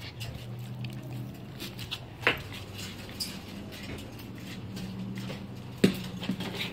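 A pug panting, with a couple of sharp knocks, the loudest near the end.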